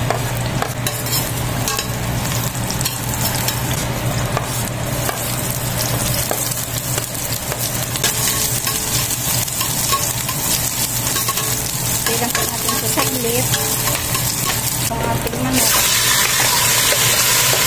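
Garlic and sliced red onion sizzling in hot oil in a stainless steel pot, stirred with a metal spoon that scrapes now and then. About fifteen seconds in, the sizzle turns suddenly louder and brighter as raw chicken pieces go into the pot.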